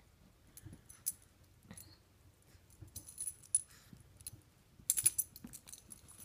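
Small metal dog tags jingling in short clattery bursts as a Shih Tzu shoves and mouths a rubber ball, with the loudest burst about five seconds in.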